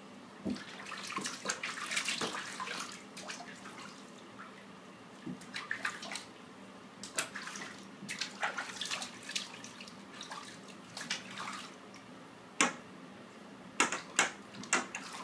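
Bathwater splashing and sloshing in irregular bursts as hands wash a Labrador puppy standing in a filled bathtub, with a few sharper splashes near the end.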